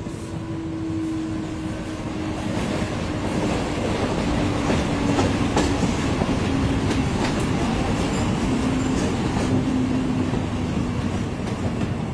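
Mumbai suburban local train running, heard from inside the carriage: a steady rumble of wheels on the track that grows louder over the first few seconds, with scattered clacks and rattles from the rail joints.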